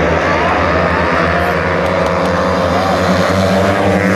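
Several speedway motorcycles racing, their single-cylinder engines running loud and steady as the pack goes round the track.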